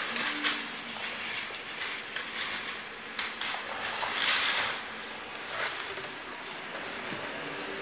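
Footsteps on concrete and scattered clicks and clatter, with a brief louder rushing noise about four seconds in.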